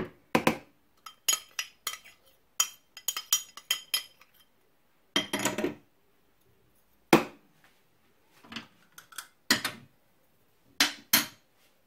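A metal spoon clinks and taps against a mixing bowl as butter is added and knocked off it, in irregular clicks and knocks. The sharpest knock comes about halfway through.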